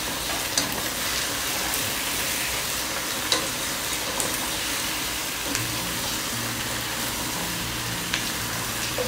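Chicken pieces and onions sizzling in olive oil in a pot, with a wooden spoon stirring them and knocking against the pot a few times.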